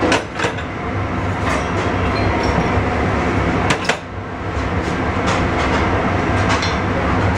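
Steady mechanical rumble and hiss with a few sharp knocks, the clearest just after the start and another a little before four seconds in.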